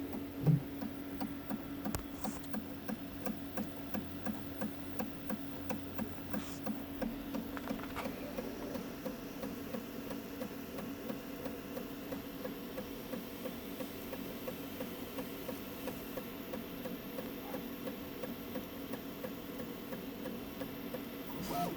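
Prusa Mini 3D printer running, with a steady fan hum and regular clicking, several clicks a second; a louder click sounds about half a second in. The clicking is an unexplained fault noise whose cause the owner does not know.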